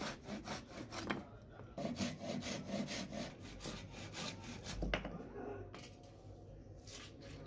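Handsaw cutting through a small wooden block in quick back-and-forth strokes, about three a second. A dull thud comes about five seconds in, and the strokes then stop.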